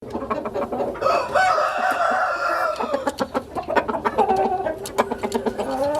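Roosters crowing in a coop: one long crow about a second in, and a second, lower crow starting around four seconds in, with scattered sharp clicks throughout.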